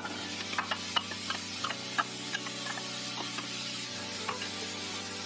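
Diced onion and garlic sizzling in hot oil in a stainless steel pot, with the clicks and scrapes of a wooden spatula stirring them against the pot.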